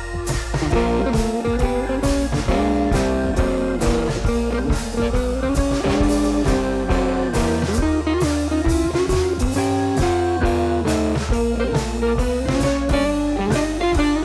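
Background music: a blues-style guitar tune with bass and drums, at a steady beat.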